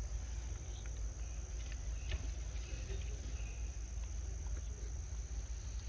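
Insects chirping in a steady, high-pitched drone, over a low rumble.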